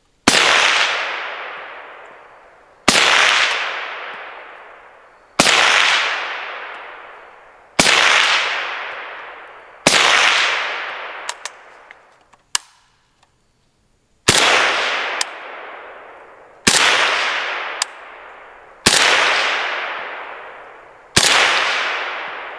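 Suppressed 7.62×39 AK pistol (Zastava PAP M92) firing slow single shots through a 30-caliber suppressor, one about every two and a half seconds. Each shot is a sharp crack followed by a long echo that dies away over about two seconds. Five shots, a pause of about four seconds with a couple of light clicks, then four more.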